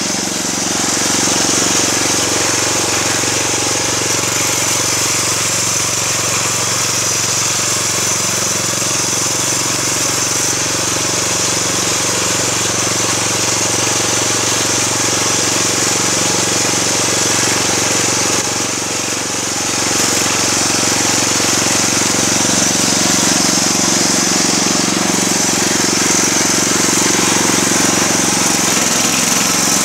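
Small petrol engine of a homemade belt-driven push mower running steadily at high speed as its blade cuts tall grass. It goes briefly quieter about 18 seconds in, then picks up again.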